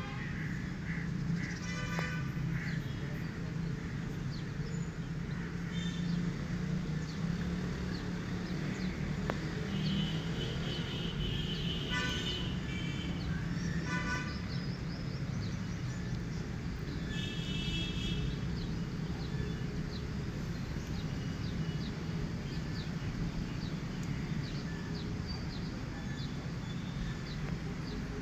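Steady low drone of traffic or an engine, with several short horn toots about 2, 10, 12, 14 and 18 seconds in, and faint bird chirps.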